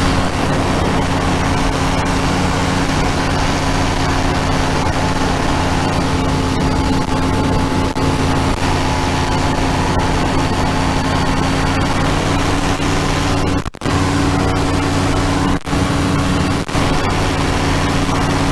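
Powered parachute's engine and propeller running steadily at cruise, an even drone heard from the pilot's seat. The sound dips out for a split second a few times in the second half.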